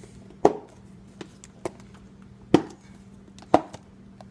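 Food containers and lids being handled and set down: three sharp knocks with lighter taps and clicks between them.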